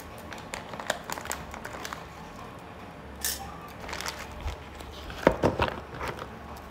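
Scattered light clicks and taps of hand work with kitchen utensils at a counter, with a louder cluster of knocks about five seconds in.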